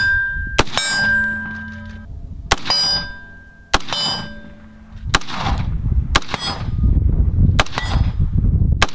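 Faxon ARAK-21 gas-piston rifle firing seven single .223 shots, irregularly spaced about one to one and a half seconds apart. It keeps cycling after being fouled with spit and dirt. The first few shots are followed by a short metallic ring from hit steel targets.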